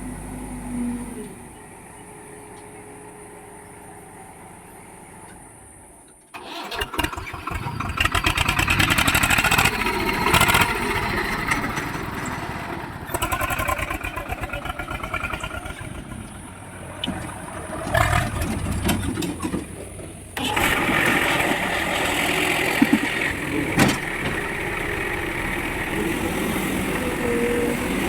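A diesel engine starts about six seconds in, first firing in rapid even pulses, then runs loudly, rising and falling under load. It gets louder again about twenty seconds in.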